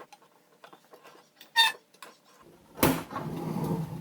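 Metal workpiece being handled at the bench: light ticks, then a short ringing clink about one and a half seconds in. Near the end comes a loud knock followed by about a second of metallic clattering and scraping.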